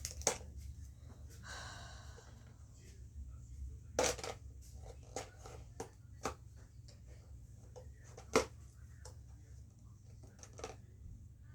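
Plastic marble run pieces and packaging being handled and rummaged through: scattered sharp clicks and clacks, the loudest about four and eight and a half seconds in, with a brief rustle about two seconds in.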